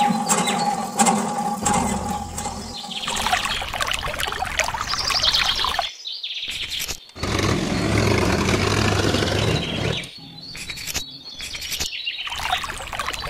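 Water from a miniature hand pump pouring through a tube into a small plastic tank, with birds chirping.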